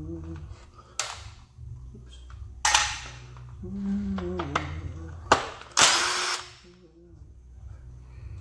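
A power tool run in three short bursts, a couple of seconds apart, with a sharp metallic click between the last two.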